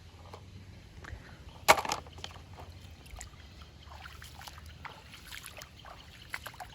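Shallow muddy water splashing and sloshing as it is disturbed: one sharp splash about two seconds in is the loudest sound, followed by a string of smaller splashes.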